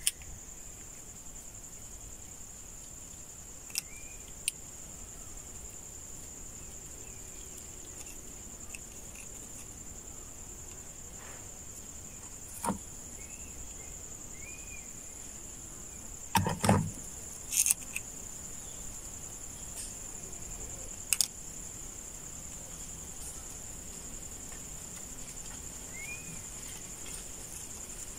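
Insects droning steadily at a high pitch outdoors, with a few faint short chirps. Scattered clicks and knocks from handling the multimeter leads and alligator clips come through it, the loudest cluster about two-thirds of the way in.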